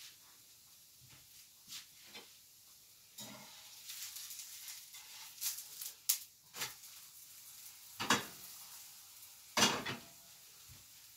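A blin frying in a hot pan, sizzling, with spatula scrapes and several sharp clanks of the pan and utensils. The loudest two clanks come about eight and nearly ten seconds in.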